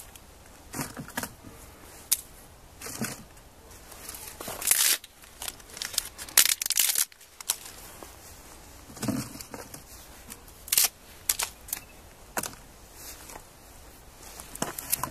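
Dry crackling and crinkling in irregular bursts as sheets of dried kelp are handled, broken and laid on top of the pot.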